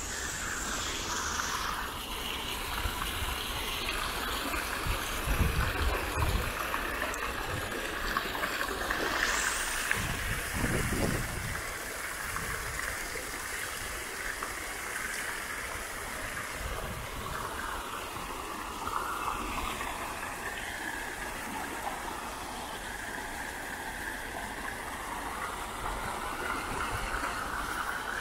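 Fountain jets splashing into a stone basin: a steady rush of falling water. A few low thumps come between about five and eleven seconds in.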